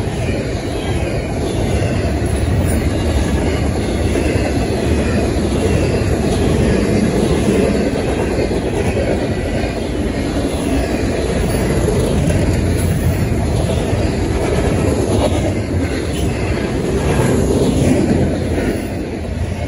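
Double-stack intermodal train's well cars rolling past at speed: a loud, steady rumble of steel wheels on rail.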